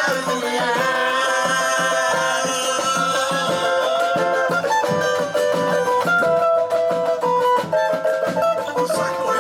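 Live samba band playing an instrumental passage: a driving percussion beat with plucked strings carrying the melody.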